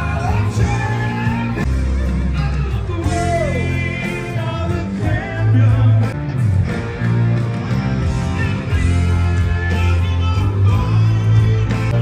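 Live rock band playing with drums, bass, guitar and a singer.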